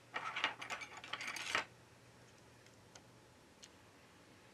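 Quick clicks and scraping of a small black plastic part being worked off an HTC U11 phone motherboard by hand, lasting about a second and a half. After that only a couple of faint ticks are heard.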